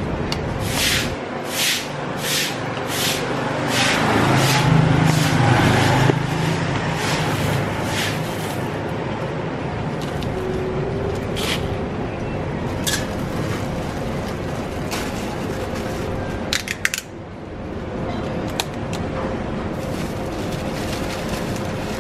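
Steady street traffic and market noise, with a quick run of about six short scraping strokes in the first few seconds, like a spoon or scoop working through ice or toppings, and a few sharp clicks near the end.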